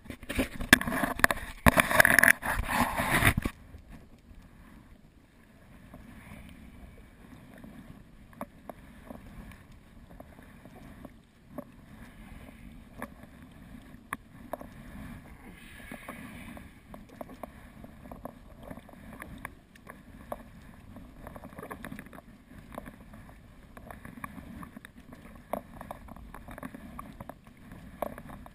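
Small splashes and drips of water around a sea kayak on the water, after a loud rushing noise in the first few seconds.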